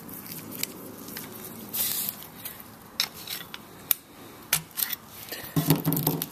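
A screwdriver and valve spring compressor working on a small engine's valve: a string of sharp metallic clicks and taps with a short scrape about two seconds in, as the valve is pried up off its seat against the compressed spring.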